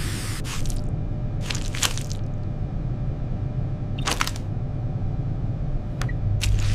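Steady low hum of a spaceship cabin's background ambience, with several short, sharp sound effects scattered through it.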